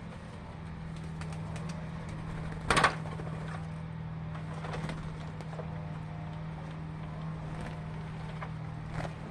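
Birds calling and cooing over a steady low hum. A loud, short burst of noise about three seconds in, and a small click near the end.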